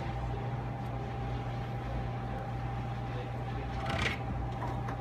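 Steady low machine hum with a faint, steady high-pitched whine over it, and a short rustle about four seconds in.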